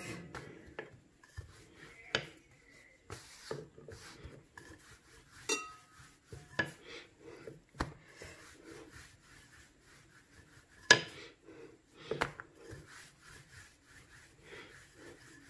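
Wooden rolling pin rolling dough thin on a floured counter: soft rubbing and scraping, with scattered light knocks and a few short clinks, the sharpest about eleven seconds in.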